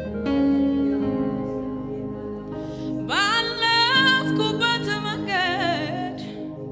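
A woman singing a worship song into a microphone over sustained electric keyboard chords. Her voice comes in about three seconds in, sliding up into long held notes with vibrato.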